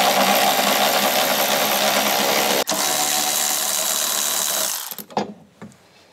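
Hand-held power tool whirring steadily, with a brief break about two and a half seconds in, then stopping about five seconds in; a few light knocks follow.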